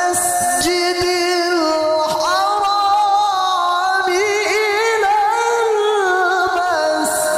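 Man reciting the Quran (tilawah) in a long, melodic, ornamented line, holding notes and sliding and turning between pitches, amplified through a handheld microphone. A brief hiss sounds near the start and again near the end.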